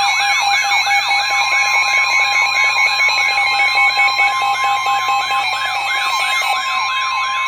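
Weather radio alert sounding for a Severe Thunderstorm Warning: a loud warbling alarm that rises and falls about three times a second, over the steady NOAA Weather Radio attention tone.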